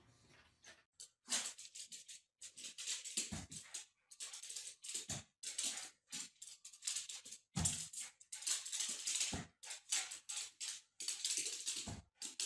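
Sounds of a small excited dog: many short, hissy bursts in irregular clusters, broken by a few dull thumps.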